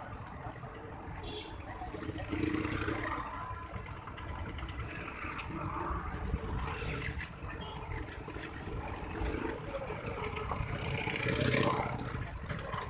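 Street traffic noise of motorbikes and cars heard from a moving bicycle, over a steady low rumble. Light rattling clicks come from about seven seconds in.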